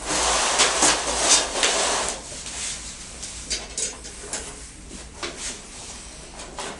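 Chain-link fence mesh rattling and scraping against a flat metal tension bar as the bar is threaded through the mesh loops, with scattered metallic clicks. Busiest in the first two seconds, then sparser clinks.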